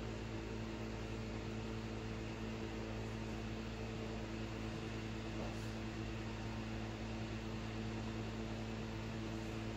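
Steady electrical hum made of several low tones, over a faint even hiss.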